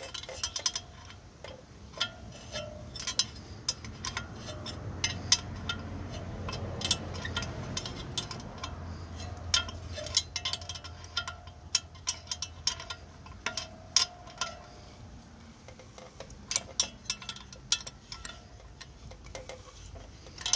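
Irregular metallic clicks and clinks of a hand wrench working the bolts of a water-pump fan, the bolts being run in bit by bit with the fan turned between them. A low rumble swells and fades in the middle.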